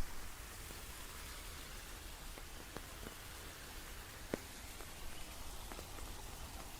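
Steady rain falling, an even hiss with scattered louder single drops ticking now and then.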